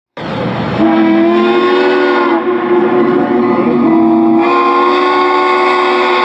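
Steam locomotive whistle blowing a long blast of several tones at once. It opens with a short hiss and swells louder again about four seconds in.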